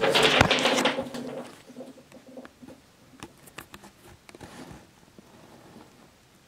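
Camera handling noise: rubbing and rustling loudest in the first second and a half, with a faint low tone under it, then scattered light clicks and taps that fade out.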